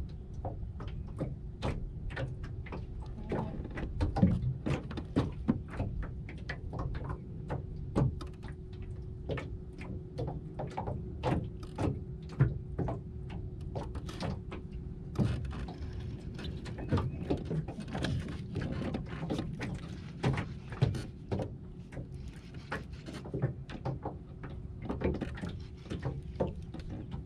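Small waves lapping and slapping against the hull of an anchored 12-foot aluminum jon boat, giving irregular short knocks, a few a second, over a steady low rumble.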